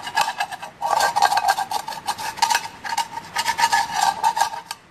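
Hand scraper scraping caked grass build-up off a Honda mower's steel blade disc in quick repeated strokes, with a brief pause about a second in. A steady metallic ring sounds under the strokes.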